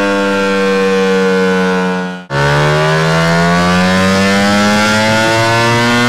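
Ducati Panigale V4's V4 engine through an aftermarket exhaust, run hard under throttle. There is a high engine note, a sudden brief break about two seconds in as it shifts up, then a lower note that climbs steadily as the revs rise again.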